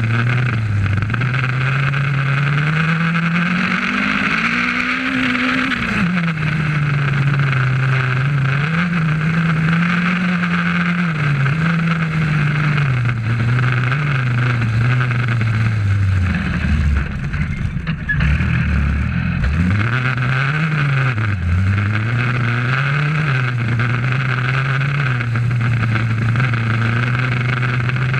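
Rally car engine heard from inside the cabin at speed, revving up and down through the gears. The revs climb to a high peak about five seconds in, drop low around two-thirds of the way through as the car slows, then climb again.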